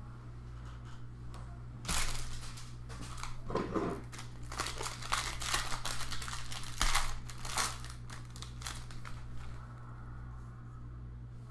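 Plastic wrapper of a jumbo pack of baseball cards crinkling and tearing as it is ripped open, in a run of rustling strokes from about two seconds in until about nine seconds in.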